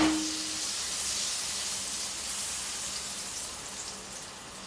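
Butter sizzling in a hot frying pan over lowered heat, a steady high hiss that gets a little quieter near the end. A short metallic ring dies away at the start.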